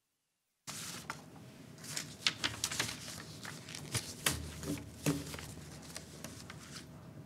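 Rustling and many scattered sharp clicks over a steady hum, starting abruptly out of dead silence about a second in and fading out near the end: handling noise picked up by an open microphone.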